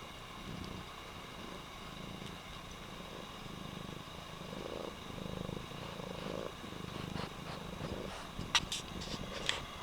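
Domestic cat purring, a low rumble that swells and fades in repeated pulses, with two sharp clicks near the end.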